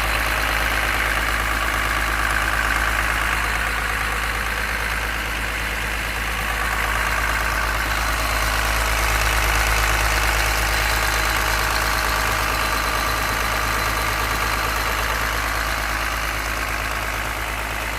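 Excavator's diesel engine running steadily, swelling a little in level partway through.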